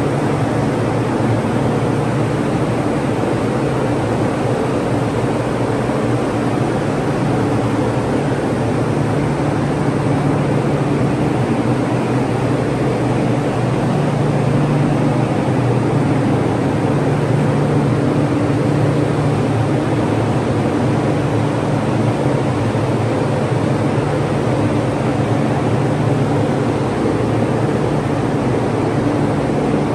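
Ventilation fan running steadily while fresh paint dries: a loud, even rush of air over a low hum, unchanging throughout.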